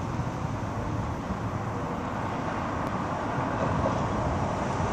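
Steady road-traffic rumble with no clear engine note, growing a little louder near the end as a vehicle approaches.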